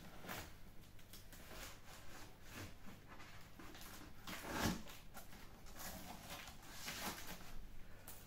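Packing tape being picked at and pulled off the top of a cardboard box: faint, scattered scratchy rips and cardboard rustles, the loudest a little past halfway.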